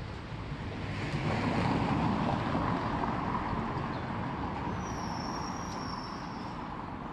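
City street traffic noise, swelling from about a second in as a vehicle passes and then easing. A thin, steady high tone is heard for about two seconds in the second half.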